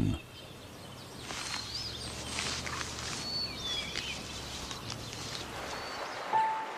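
Outdoor ambience, a steady soft hiss, with a few short, thin, high bird chirps that slide in pitch. A steady held musical tone comes in near the end.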